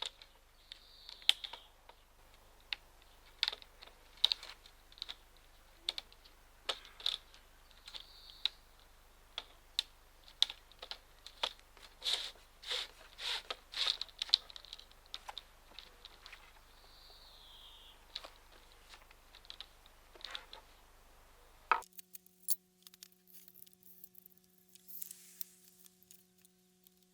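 Irregular clicks, taps and light knocks of roller-reefing foil sections and fittings being handled and pushed into place, with a few short squeaks. About 22 seconds in, the clicking stops and a steady low hum with a few scattered clicks takes over.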